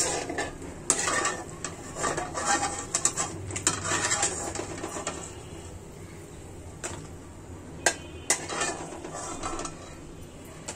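Metal kitchen utensils clinking and scraping against pots and dishes. The clatter is busy for the first five seconds, then thins to a few separate knocks.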